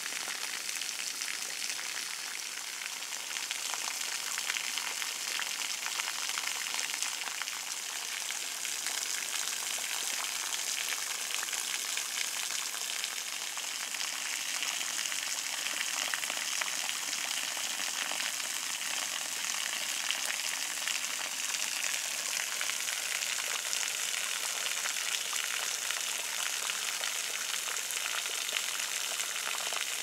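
Spring-fed waterfall of many thin streams falling from a mossy rock overhang, its drops pattering like heavy rain: a steady, high hiss.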